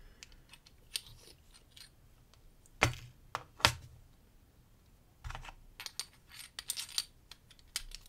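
UAP Kinetica brass euro cylinder lock handled while being gutted: two sharp metallic clicks about three seconds in, then a run of small light clicks and taps as the plug and follower are worked through the cylinder.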